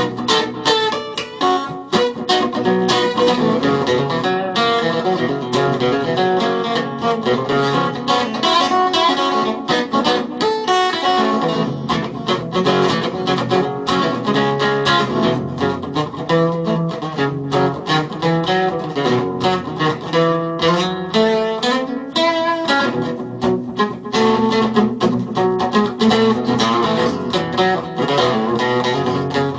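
Acoustic guitar playing an instrumental blues break, fast picked notes with strummed chords.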